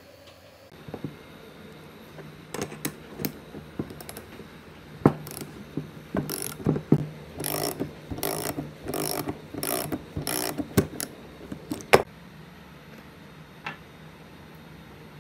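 A two-jaw bearing puller being worked to draw a ball bearing off an electric fan motor's rotor shaft. Metal tool clicks and clanks lead into about six rasping, ratchet-like metallic strokes, roughly two a second, and a single sharp click follows.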